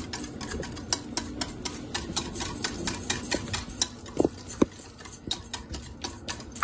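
Wire whisk beating yogurt in a ceramic bowl, its wires clicking against the bowl in quick, uneven ticks, several a second.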